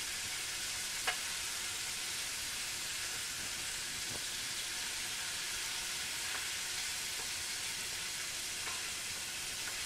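Cornstarch-coated chicken pieces deep-frying in a saucepan of hot oil, a steady sizzle as they finish browning, with one light click about a second in.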